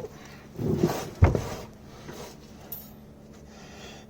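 A short grunt-like vocal sound, then a single sharp metallic clank about a second in, as a tool or part knocks against metal during work on the car's front hub.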